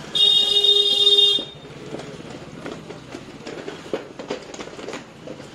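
A vehicle horn sounds one steady blast for a little over a second, then busy street noise with scattered clicks and knocks.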